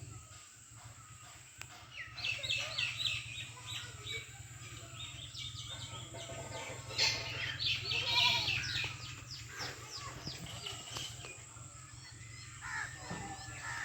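Small birds chirping in quick, repeated high notes, with a goat bleating in the middle and again near the end.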